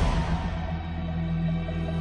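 Soft background music: steady held low notes with a quiet note pulsing about four times a second.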